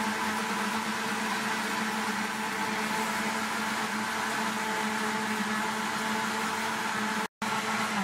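Countertop kitchen blender running at a steady speed with a constant motor hum, churning liquid coconut-cake batter of eggs, margarine, coconut milk and sugar. The sound breaks off for an instant near the end, then carries on.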